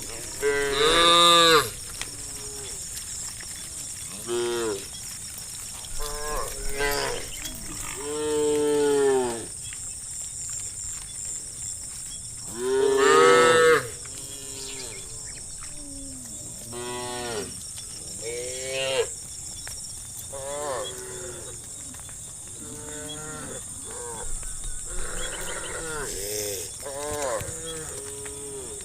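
Cows mooing again and again, a string of calls of varying length that rise and fall in pitch, with three loud, long moos about a second in, near the middle and about halfway through.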